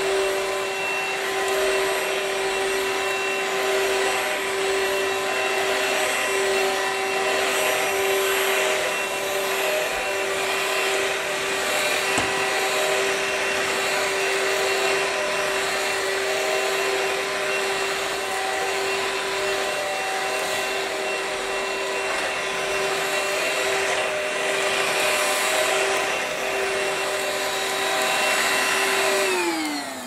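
BlitzWolf BW-AR182 cordless stick vacuum running steadily on carpet: a steady motor whine over the hiss of the airflow. Near the end it is switched off and the whine slides down in pitch as the motor spins down.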